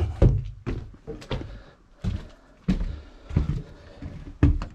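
About seven dull thumps and knocks, irregularly spaced half a second to a second apart and loudest near the start: footsteps and handling of a house door on arriving home.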